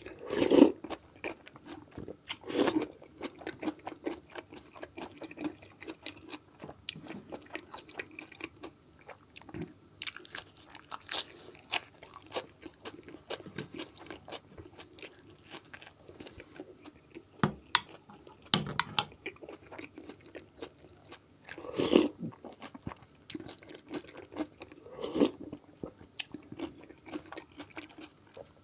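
Close-up eating sounds: spoonfuls of okroshka, a cold chopped-vegetable soup, taken and chewed, then bites of bread with sausage chewed. There are many sharp clicks and irregular louder bursts every few seconds, the loudest right at the start and again around two-thirds of the way in.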